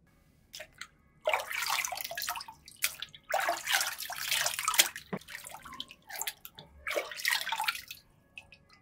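Water in a plastic tub splashing and dripping as a smartphone is plunged in and lifted back out by hand. The sound comes in several irregular bursts, with three longer stretches of splashing.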